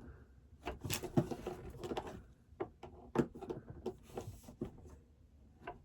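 Rummaging through a drawer: a run of short, quiet knocks and clatters as small objects are moved about and picked up.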